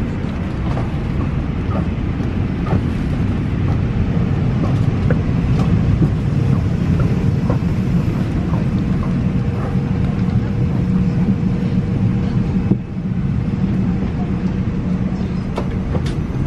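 Airliner cabin ambience while passengers disembark: a steady low rumble of the cabin air and ventilation, with scattered small clicks and knocks and faint voices.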